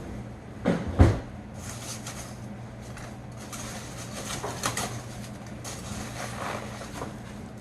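Foam packing peanuts and cardboard rustling and crackling as a box is unpacked by hand, with two thumps about a second in.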